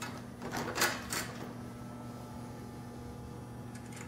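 Small metal fasteners clicking and rattling as a screw is pushed through the steel rack upright and a nut is fitted by hand, a short cluster of clicks about a second in. After that only a steady low hum.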